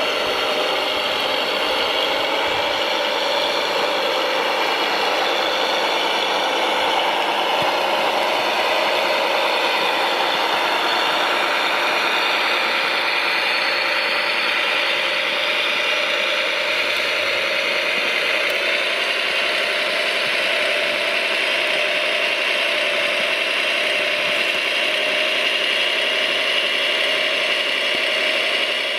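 Radio-controlled construction machine running steadily: a mechanical whine of several steady tones with rattling.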